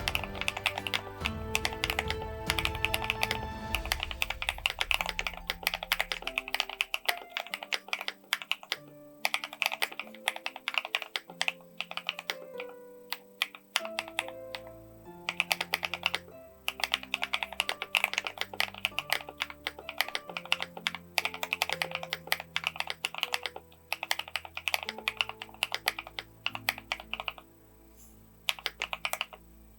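Typing on a Daring Run Flip 6P mechanical keyboard fitted with HMX EMO switches: rapid runs of key clacks broken by short pauses.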